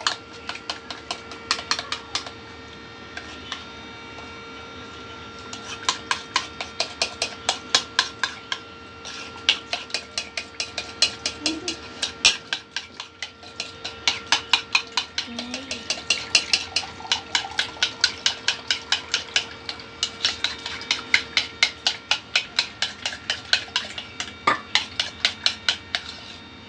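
Metal spoon clinking against the side of a ceramic bowl while stirring cream and water together: quick runs of light clinks, several a second, with short pauses between runs.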